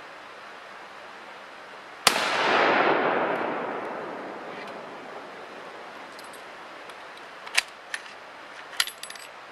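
A single shot from a Mauser K98 bolt-action rifle in 7.92×57mm Mauser, about two seconds in, with a long echo dying away over the next two to three seconds. Near the end, several sharp metallic clicks as the bolt is worked.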